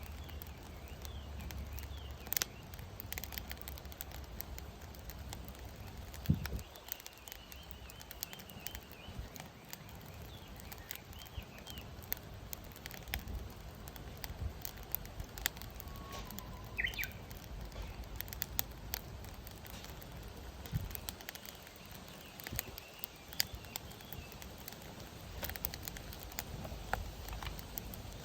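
Firewood burning in a fire pit, crackling with scattered sharp pops, one louder pop about six seconds in. Birds chirp now and then.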